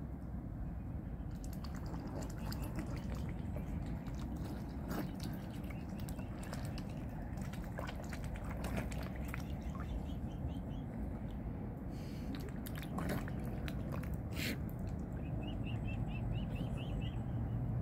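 Mute swans dabbling and feeding at the water's surface: irregular small splashes, drips and bill clicks over a steady low rumble. A short run of faint high peeps comes near the end.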